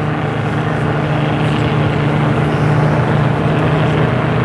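Engines of several small vintage racing hydroplanes running at speed together, heard as a steady drone.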